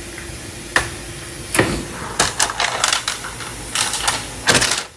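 Irregular clicks, taps and short rustles of hands, an olive-oil bottle and parchment paper being handled on a baking pan, with the strongest cluster near the end.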